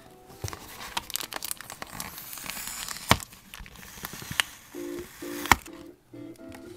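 Plastic toy packaging crinkling and small plastic pieces clicking as they are unpacked, with two sharp clicks about three and five and a half seconds in. Soft background music joins near the end.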